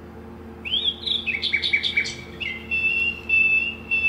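Recorded birdsong played from a children's sound book's button speaker: a quick run of chirps stepping down in pitch, then a few clear whistled notes, starting about half a second in.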